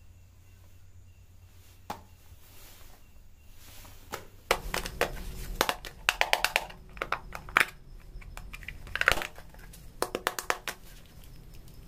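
Hands picking up and handling homemade cardboard model phones and a box speaker: a quick run of clicks, taps and crinkles starting about four and a half seconds in.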